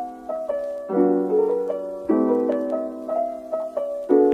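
Background music: a piano piece, a melody of single notes over chords struck every second or two.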